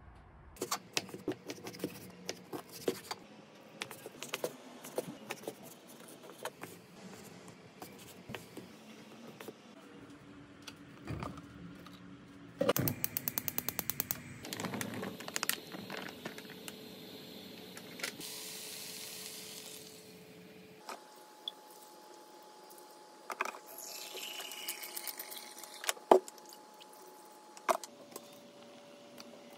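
Cooking sounds: scattered knocks and taps on a wooden cutting board for about the first ten seconds, then a rapid run of clicks and a steady hiss at a gas stove, and a few sharp clinks near the end.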